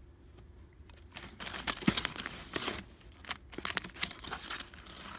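Steel chain handcuffs being handled: irregular metallic clinking and clicking of the chain links and ratcheting cuffs, starting about a second in, typical of the cuffs being closed.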